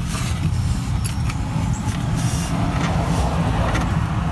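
A cloth rag rubbing and wiping against the underside of a car near the oil pan, with light rustles and scattered clicks, over a steady low rumble.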